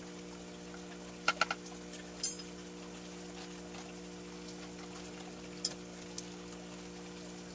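Plastic bottles being handled: three quick sharp clicks a little over a second in, then single clicks at about two, five and a half and six seconds. Under them a steady low hum.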